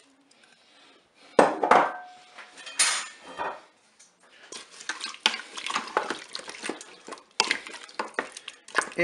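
Wooden spatula stirring vegetables and broth in the metal inner bowl of a Cookeo multicooker, knocking and scraping against the bowl. A couple of sharp knocks come about a second and a half in, and from about halfway on there is a quick, steady run of taps and scrapes.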